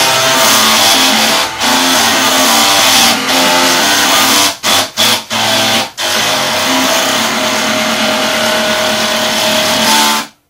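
A bank of eight floppy disk drives played as a musical instrument, their heads stepping to sound the notes of an anime opening theme in a harsh, buzzy tone. The music breaks into several quick stops about halfway through, then ends abruptly.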